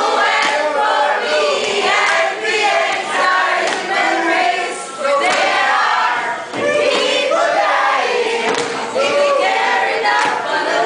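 A group of students singing and chanting together, many voices at once without a break.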